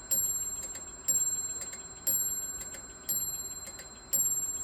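French mantel clock striking, five ringing blows about a second apart, each dying away before the next, with the movement ticking between them. The strike has been deliberately set out of synchronisation with the hands.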